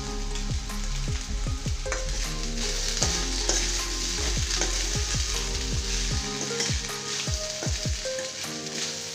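Chickpeas and sweet corn sizzling in ghee in a stainless-steel kadai while a spoon stirs and scrapes the mixture around the pan, with a steady hiss and repeated small clicks and scrapes.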